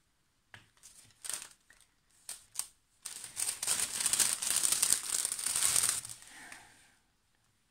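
Clear plastic packaging sleeve being handled and crinkling. A few short rustles come first, then about three seconds of dense crinkling about three seconds in, which fades out near the end.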